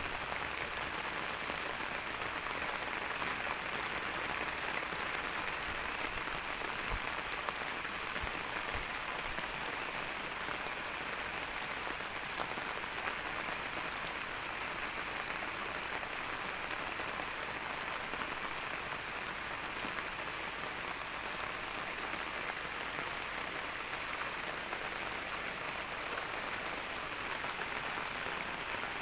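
Steady rain falling, an even dense patter that holds at the same level throughout.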